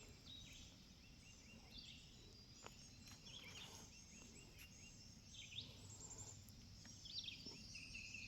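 Quiet outdoor ambience with faint bird calls: scattered short chirps and a few quick runs of repeated notes, over a low steady background hum.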